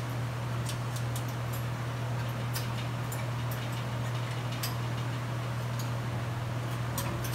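Irregular light metal clicks and clinks as oily engine parts are hung on the wire hooks of a parts-cleaning cabinet's rack, over a steady low hum.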